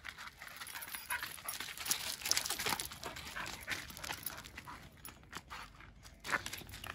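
Footsteps crunching and scuffing on loose gravel: a dog in rubber-soled dog boots scrabbling and trotting on a leash, alongside a person's steps, in quick irregular strokes.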